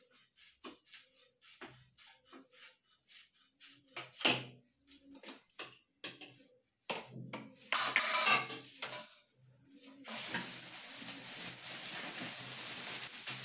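Clicks, taps and knocks of shower mixer fittings being handled, with a sharper knock about four seconds in and a louder scraping clatter about eight seconds in. From about ten seconds a steady hiss runs on.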